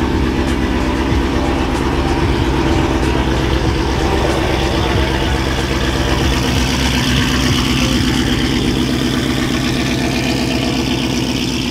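Car engine idling steadily with a deep, pulsing rumble.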